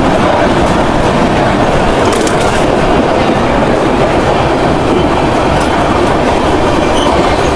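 Loud, steady running noise of a Rajdhani Express passenger train on the move, its wheels rolling on the rails, heard from the open coach door.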